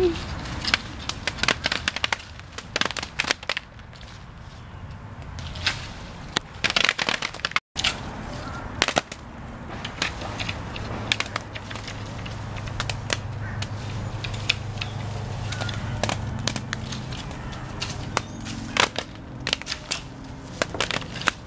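Ripe mulberries falling from the tree onto plastic tarps, each berry landing with a sharp tap on the plastic. The taps come at irregular times, sometimes several in quick succession.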